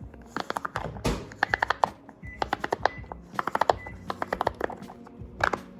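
Pop-it fidget toy bubbles being pressed in quick runs of sharp pops, several clusters of clicks in a row, over soft background music.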